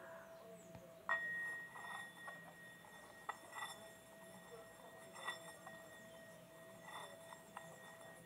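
Hand-held metal singing bowl ringing faintly with a steady tone, struck with a wooden mallet about a second in, which adds a brighter ringing note. After the strike the mallet is worked around the rim, making a few faint brief touches against the metal.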